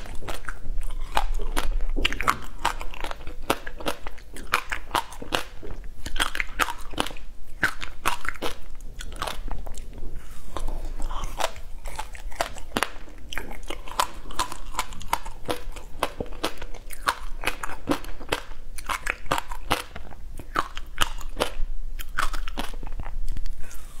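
Biting and chewing a slab of frozen passion fruit ice: many sharp crunches and cracks in quick succession.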